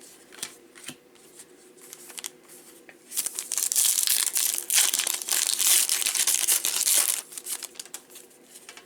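A trading card pack's foil wrapper crinkling for about four seconds as it is torn open, with a few light clicks and taps before and after.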